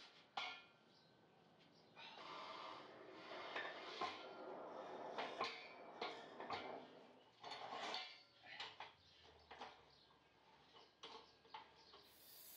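Steel square tubing being slid and knocked into place on a metal chop saw's base and vise: scattered light clanks, scrapes and taps of steel on steel.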